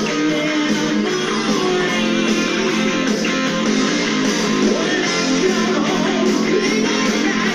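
Guitar music.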